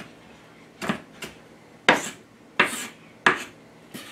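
Chef's knife chopping onion on a wooden cutting board: about six separate, irregularly spaced knocks of the blade against the board.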